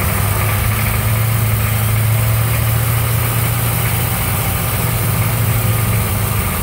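Hummer M998's diesel V8 running steadily under way, a low drone heard from inside the cab, with road noise under it.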